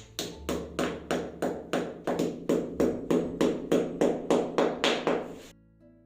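Rapid, evenly spaced tapping, about four sharp taps a second, each with a short ringing tail, that stops abruptly near the end.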